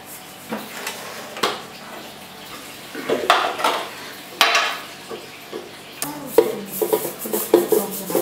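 Spatula stirring and scraping a bun batter in a stainless steel mixing bowl, with occasional knocks against the metal. The strokes come faster and closer together in the last couple of seconds.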